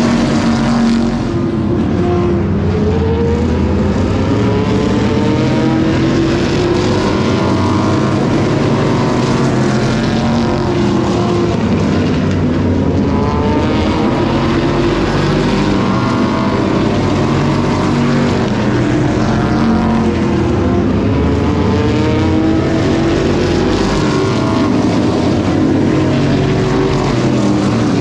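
A pack of vintage modified race cars lapping an oval track at racing speed, engines running loud and continuously. Their pitch rises and falls every few seconds as cars pass close by.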